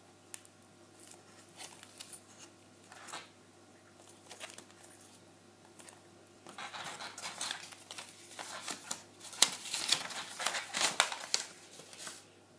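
A small plastic bag of spare screws crinkling as it is handled, with scattered light clicks. From about six seconds in comes denser, louder rustling of plastic and a paper instruction sheet being unfolded, which stops shortly before the end.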